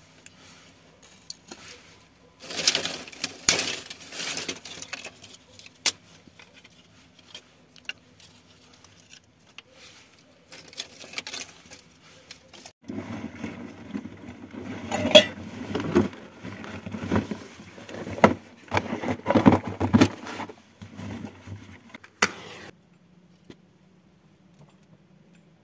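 Dry sticks and twigs being handled and stacked onto a heap of dry grass for a fire lay: a clattering burst a few seconds in, scattered sharp clicks, then a long busy stretch of wooden clatter and clicks that stops short a few seconds before the end.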